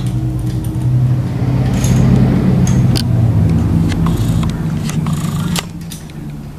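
Small wrench clicking and scraping on the metal throttle-cable adjuster lock nut of a Harley-Davidson handlebar as it is tightened: a few sharp clicks over a loud, steady low mechanical hum. The hum drops suddenly about five and a half seconds in.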